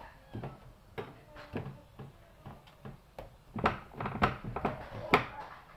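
Irregular knocks and thuds of hands and a rolling pin working a sheet of bread dough on a metal baking tray, louder and more frequent from about halfway through.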